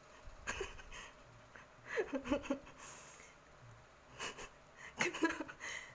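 Quiet snoring of a sleeping man: two main snoring breaths about three seconds apart, with fainter breathing sounds between.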